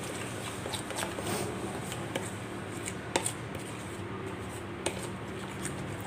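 A spoon stirring a wet yogurt-and-spice paste in a plastic bowl: soft wet scraping, with a few sharp clicks as the spoon knocks against the side of the bowl.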